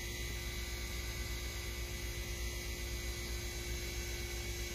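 A steady low hum with an even hiss over it, unchanging throughout, with no distinct sounds standing out.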